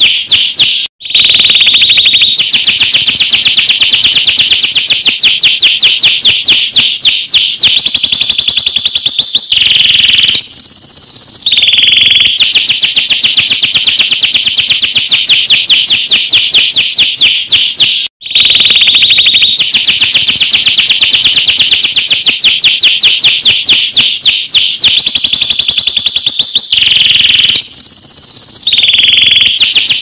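Domestic canary singing a loud, continuous song of rolling trills, fast runs of rapidly repeated high notes, broken now and then by brief held whistles. The song cuts out for a split second about a second in and again about eighteen seconds in.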